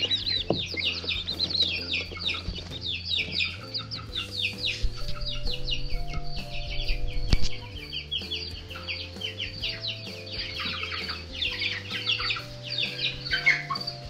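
A brood of Rhode Island Red chicks peeping constantly, many rapid high falling peeps overlapping, with soft background music underneath. A single knock sounds about seven and a half seconds in.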